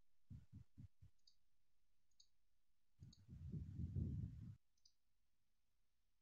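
Near silence broken by a few faint, sharp clicks spread through it, some short low thumps in the first second, and a low rumble lasting about a second and a half from three seconds in.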